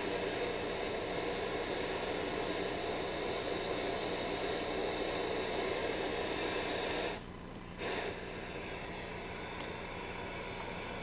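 Static hiss from a vintage Emerson black-and-white portable TV's speaker, tuned to a channel with no signal, with a steady hum underneath. About seven seconds in it cuts out briefly, then comes back a little quieter.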